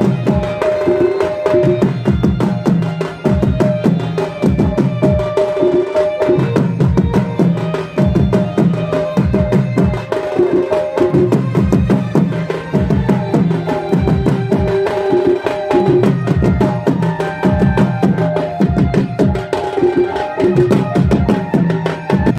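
Jhumur folk dance music: madal barrel hand drums beat a steady, repeating rhythm, and a melody line of short held notes runs over the drumming.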